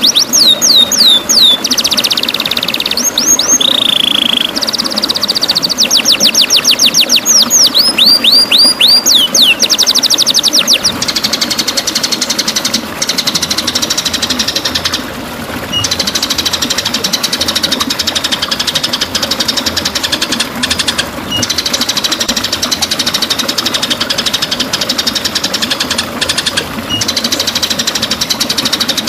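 White-rumped shama (murai batu) song: rapid-fire runs of whistled notes sweeping downward, about ten a second, broken by short buzzy phrases. After about ten seconds it turns into a dense, fast rattling trill that runs on.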